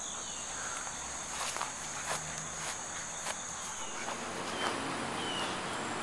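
Insects trilling steadily at a high pitch, with a few light clicks and scuffs of walking between about one and a half and three and a half seconds in.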